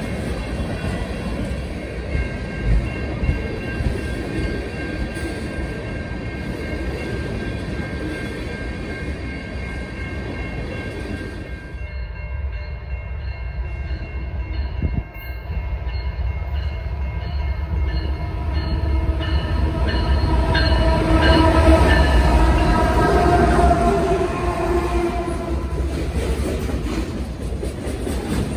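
Freight trains passing close by, wheels rumbling and clacking on the rails. An oncoming Canadian National freight locomotive sounds its horn, several tones together, which grows louder through the second half and is loudest around two-thirds of the way in.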